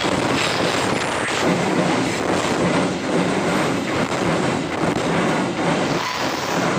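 Container freight train wagons running past at close range: a steady noise of steel wheels on the rails, with repeated clicks as the wheels pass over the rail joints.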